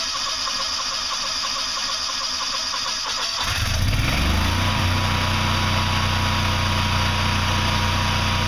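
Onan 20 kW standby generator starting about three seconds in: its engine spins up within about a second and settles into a steady run at its rated speed, heard with the muffling lid open.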